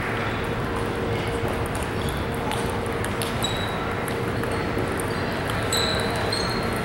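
Table tennis balls clicking off paddles and tables at several tables at once, over the steady hubbub of a large, busy hall, with a few short high squeaks in the second half.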